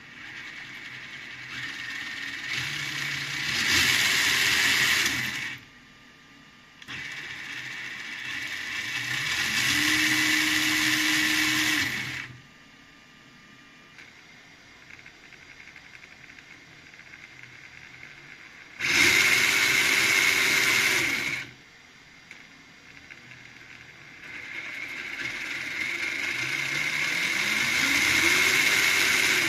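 Electric drivetrain of an MJX Hyper Go H12Y 1/12-scale RC crawler, a FOC brushless motor driving the gears, whirring in four separate runs. In each run the whine rises in pitch as the throttle comes up, holds steady, then cuts off.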